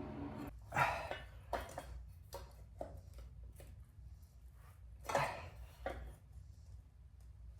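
Metal tools and motorcycle parts clinking and clanking as they are handled: about a dozen sharp separate knocks, the loudest about a second in and about five seconds in. A steady hum stops half a second in.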